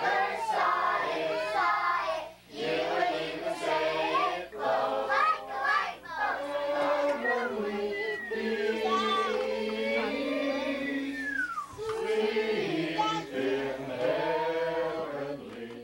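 Several voices, children's among them, singing and calling out together, with pitches sliding up and down, over a steady low hum. The voices fade out at the end.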